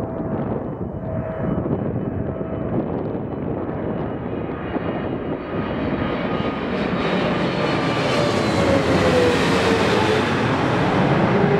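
Boeing 777-300ER passing low overhead on landing approach with gear down: the jet noise of its two GE90-115B turbofans swells and gets brighter as it comes over. Whining tones slide down in pitch as it passes.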